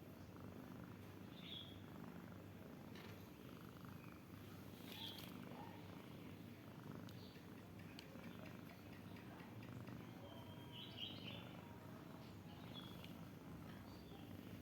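A sleeping pet snoring, a faint steady low rumble. Brief bird chirps sound a few times in the background.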